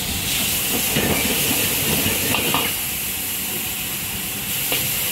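Food stir-frying in a wok over a high gas flame: a steady hiss of sizzling and steam, with the metal ladle scraping and clinking against the pan. The stirring is busiest in the first half.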